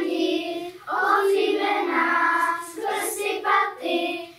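A group of children singing a Czech Christmas carolling song (koleda) together without instruments, with a brief break for breath about a second in.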